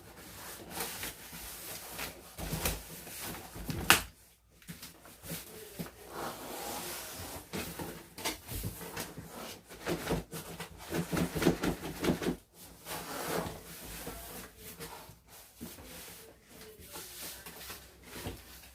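A cardboard TV box and its packing scraping, rubbing and knocking as a tightly packed 32-inch TV is worked out of it by hand, with a sharp knock about four seconds in.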